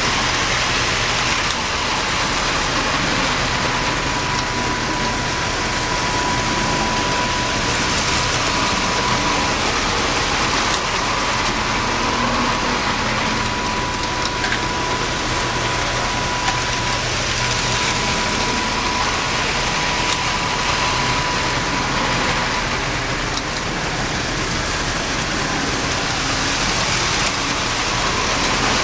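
Lionel postwar O27 toy trains running on tinplate track: a steady clatter of wheels and the hum of their electric motors, with a thin high whine that comes and goes.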